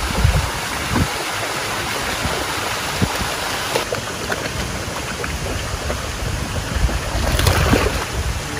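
Wind buffeting the microphone in low, irregular gusts over a steady rushing hiss.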